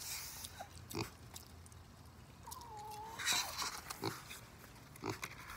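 Pages of a large paperback picture book being handled and turned, with soft paper rustles and a few light knocks. About two and a half seconds in comes one brief faint animal call from a farm animal.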